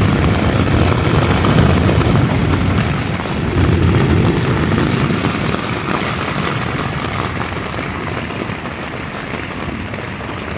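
Heavy rain drumming on a backpacking tent, heard from inside, with a low rumble that swells during the first few seconds and then slowly fades.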